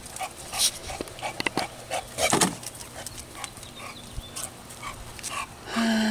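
Excited dog making short whimpers and yips, with a louder, low drawn-out whine near the end.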